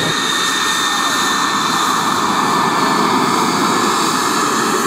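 Aero L-39 Albatros jet trainer's turbofan engine running as the jet taxis past: a steady rushing jet noise with a high whine that fades over the first second or two.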